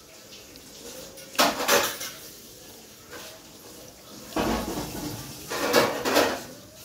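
A small steel strainer scraping and clattering against a plastic mug while wet ground leaf paste is pressed through its mesh with the fingers, in three short bursts.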